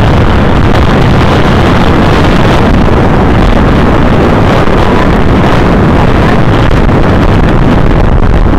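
Loud, steady wind buffeting the camera's microphone, heaviest in the low end, from the airflow past a parasail towed high above the water.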